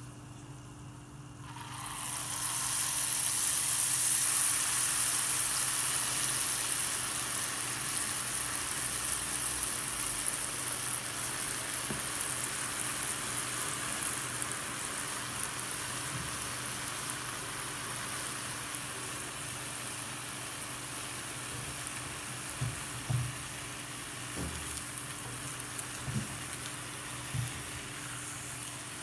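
Jalebi batter frying in hot oil in a cast-iron skillet: the sizzling starts suddenly about two seconds in as the batter goes into the oil, then slowly eases off. A few soft knocks come near the end.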